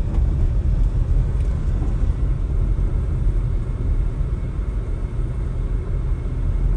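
Steady low rumble of a car travelling along a road: road and engine noise heard from the moving vehicle, with no single event standing out.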